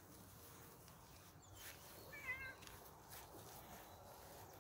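Bengal kitten giving one short, wavering meow about two seconds in, against near silence with a couple of faint clicks.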